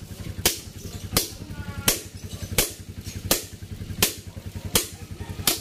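Steel hammer striking a metal piece on an Isuzu 4BC2 diesel engine block: eight evenly spaced blows, about one every 0.7 seconds. A low, fast, steady throbbing runs underneath.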